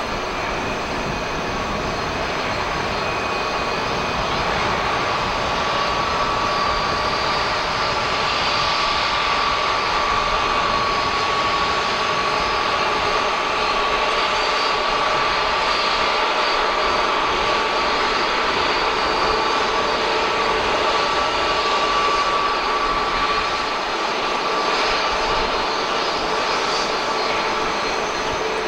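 Airbus A330-223 airliner's twin turbofan jet engines running, a steady rush of jet noise with a high whine held over it.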